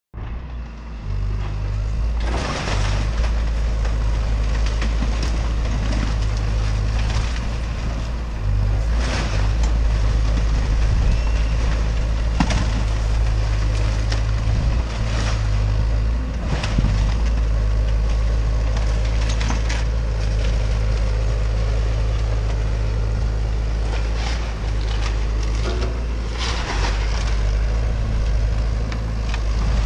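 Hyundai excavator's diesel engine running steadily with a deep hum, while timber and debris crunch and crash every few seconds as the machine tears down a house.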